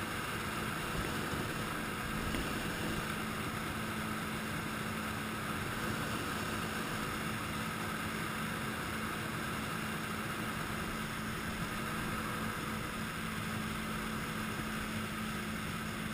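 Jet ski engine running at a steady speed while towing an inflatable ring, a constant drone over the rush of its wake.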